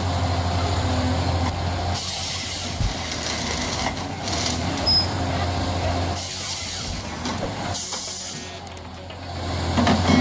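Diesel engine of a Rottne H21D forestry harvester running steadily, with several short bursts of hissing over it. The machine drops quieter for a moment near the end.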